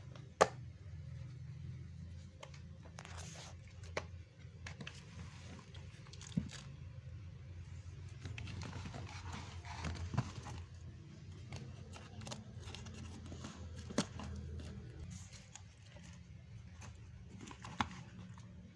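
Kittens play-fighting: scuffling and rustling, with a few sharp knocks, the loudest less than a second in, over a steady low hum.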